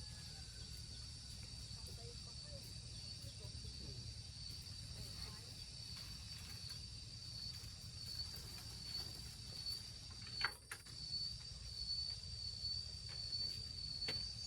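Insects trilling in a steady, high-pitched chorus over a low rumble, with a single sharp knock about ten seconds in.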